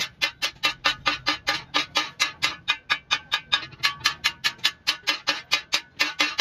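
Hand hammer beating a perforated steel kassi (spade) blade on an anvil stake: a steady, fast run of ringing metal strikes at about five a second.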